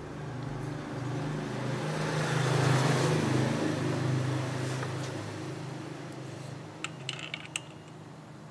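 A motor vehicle passing by: engine hum and road noise swell to a peak about three seconds in and fade away. A few light clicks follow near the end.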